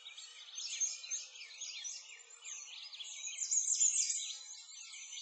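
A chorus of small songbirds chirping and singing, many short overlapping calls at once, continuing without a break.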